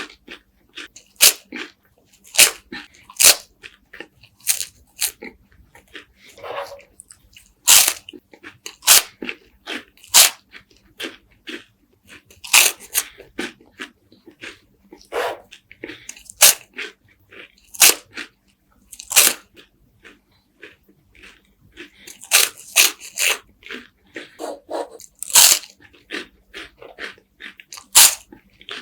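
Crisp wafers with honey and walnuts being bitten and chewed: sharp crunches every second or two, with softer crackling chewing between them.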